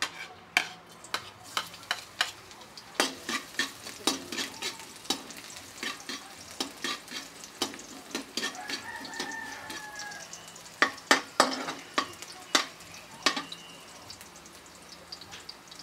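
Chopped garlic sizzling in hot cooking oil in a steel wok while a metal spatula scrapes and clacks against the wok as it is stirred. The sharp clacks come over and over, loudest in a cluster about eleven seconds in.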